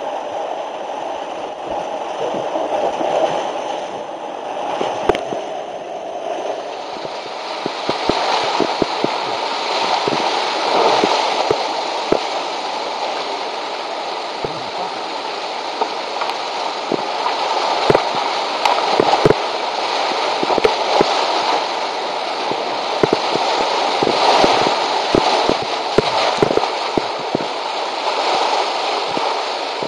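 Roaring whitewater of a steep Class IV–V creek, close to the microphone, with frequent sharp splashes and slaps of water. The sound is played back at double speed.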